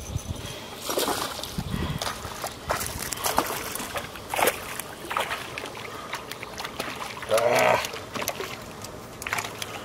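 Hooked fish splashing and thrashing at the water's surface beside the boat as it is reeled in on a spinning rod, in irregular bursts of splash. About three quarters of the way through there is a short voice sound, the loudest moment.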